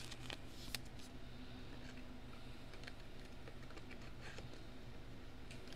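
Faint handling of a trading card and a soft plastic card sleeve: light rustling and a few small ticks, the clearest about a second in, over a low steady hum.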